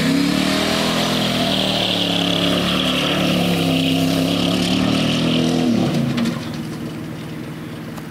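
Chevy Z71 pickup truck's engine held at high revs as the truck spins donuts in loose dirt. About six seconds in the revs fall away and the engine sound drops and fades as the truck moves off.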